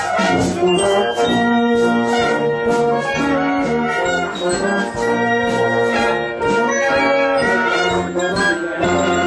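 Brass band playing a tune, with trumpets and trombones.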